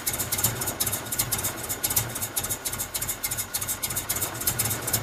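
Pickup truck engine idling roughly and unevenly on wood gas from a homemade gasifier, with a pulsing, irregular beat. The owner feels it is starving for air.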